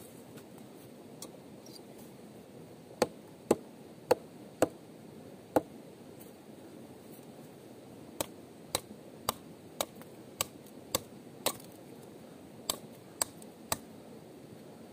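A series of sharp knocks, about two a second, in three runs with short pauses between.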